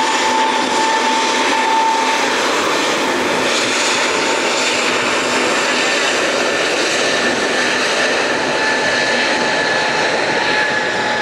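Airbus A320-family jetliner's turbofan engines at takeoff power during the takeoff roll: a loud, steady rush with a high whine that stays level throughout.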